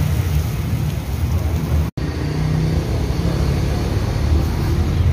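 Steady low rumble of street traffic mixed with the hiss and crackle of satay skewers sizzling over a charcoal grill. The sound cuts out for an instant about two seconds in.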